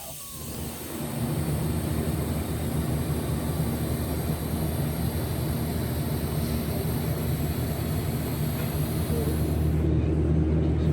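Steady low mechanical hum that fades in during the first second and then runs on evenly.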